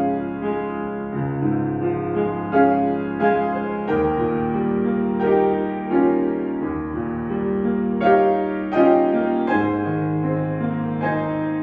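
Piano music: chords struck about once a second and held, with a sustained bass line underneath.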